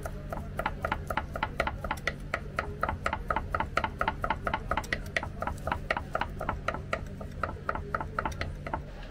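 Large kitchen knife chopping boiled lamb head meat on a wooden cutting board: a fast, even run of knocks, about four to five a second, stopping just before the end.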